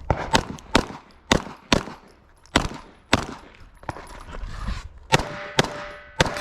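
A string of about ten pistol shots fired at uneven spacing, with a pause of about a second midway, and steel targets ringing after the last shots.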